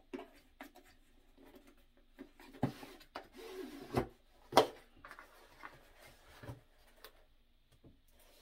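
A cardboard gift box and its packaging being handled and opened by hand: rubbing and rustling with a few light knocks, the loudest about four and a half seconds in.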